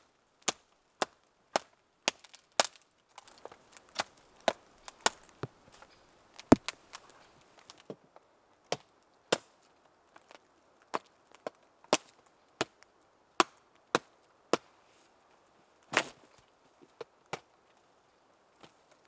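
A knife blade chopping into a wooden post: a run of single sharp knocks on wood, about one to two a second, with a couple of short pauses.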